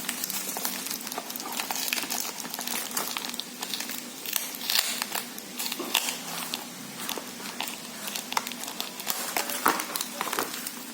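Plastic packaging crinkling and rustling as it is handled and opened, with irregular small clicks and crackles.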